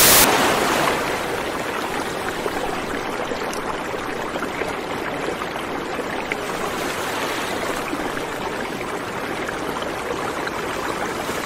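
A steady rushing noise like flowing water, with faint scattered ticks in it. It is louder at first and settles within about a second.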